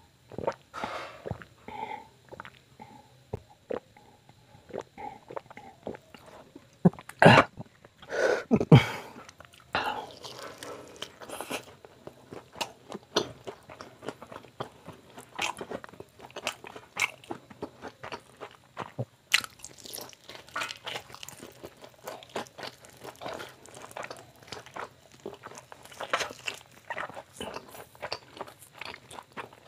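Close-up eating sounds of a fried chicken leg: crunchy bites into the fried crust and wet chewing, as a steady run of smacks and crunches, loudest about seven to nine seconds in.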